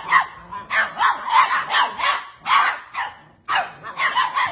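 Dog barking in quick repeated barks, about three a second, with a short break about three and a half seconds in.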